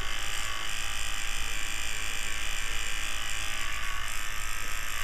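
Small electric fan running steadily: a low motor hum under an even hiss of moving air.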